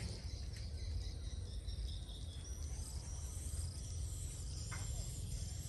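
Edible-nest swiftlets circling overhead, twittering in thin, high chirps, over a steady low rumble.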